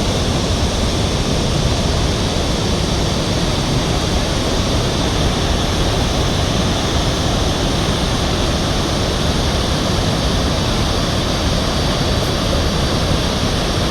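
Murchison Falls on the Nile: the loud, steady rush of a large waterfall, close by and unbroken.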